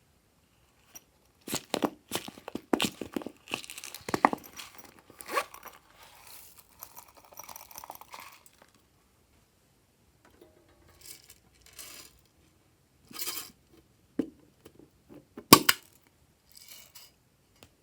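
Glossy slime being handled and mixed: clusters of sticky crackling and sharp pops, busiest in the first half. After a pause come a few separate snaps, the loudest near the end.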